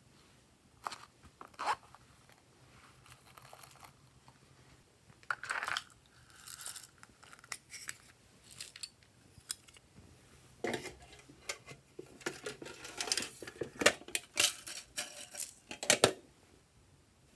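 Slime being mixed and handled: irregular sticky clicks, crackles and squelches, sparse at first and coming thick and fast over the last five seconds.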